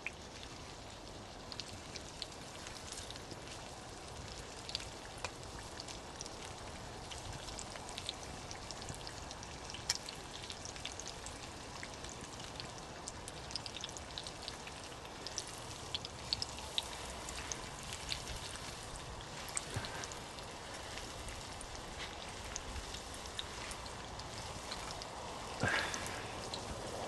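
Mushrooms frying in oil in a pan: a steady sizzle with many small scattered pops and crackles.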